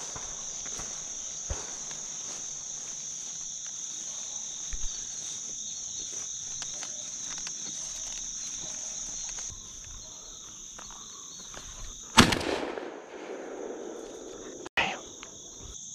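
Steady high drone of insects, then a 12-gauge shotgun fires once about twelve seconds in, with a rolling echo after the blast. A second, quieter shot comes near the end.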